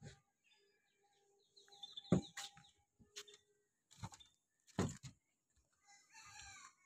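A few irregular knocks and thuds, with faint high bird-like chirps about two seconds in.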